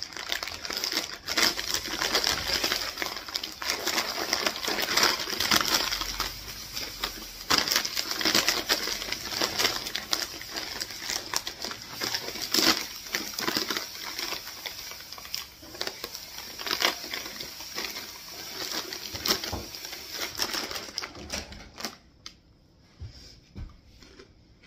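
Crinkling of a plastic snack bag and crunchy chewing of potato twist snacks: a dense run of crackles and clicks that thins out and grows much quieter in the last few seconds.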